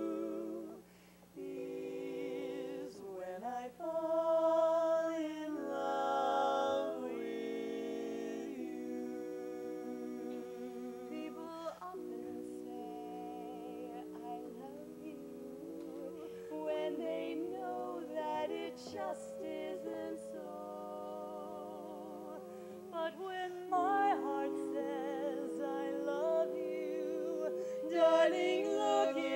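Women's barbershop quartet singing a cappella in close four-part harmony, with a short break about a second in.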